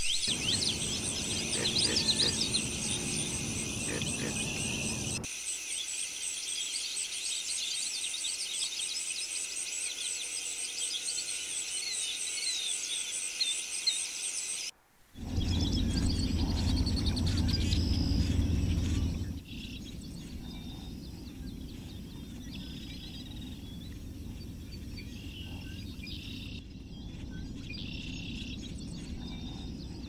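Natural outdoor ambience: a dense, high chorus of insects and chirping birds through the first half. After a brief dropout near the middle, quieter scattered bird chirps continue over a low rumble.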